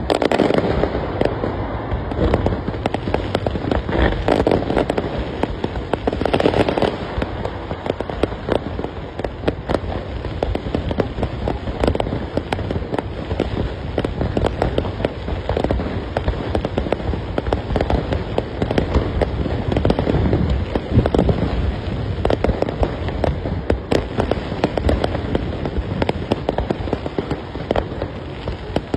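Aerial fireworks display going off in a continuous barrage of rapid bangs and crackling, with heavier clusters of blasts every few seconds.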